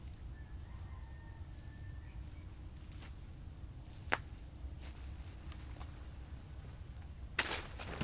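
Banana plant being picked by hand: a sharp snap about four seconds in, then a short crackling tear of stalk and dry leaves near the end as a hand of green bananas comes off. A low steady rumble sits underneath.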